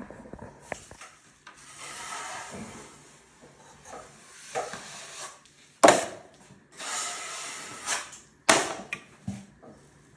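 Drywall knife spreading and scraping joint compound over taped ceiling drywall in several long strokes, broken by two sharp clacks, about six and eight and a half seconds in.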